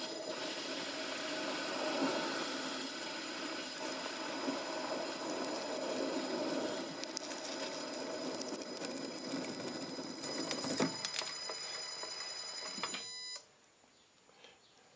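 Metal lathe running with a parting tool cutting off a small high-tensile steel valve blank: a steady motor whine over the cutting noise, with a brief sharp click shortly before the lathe is switched off and runs down near the end.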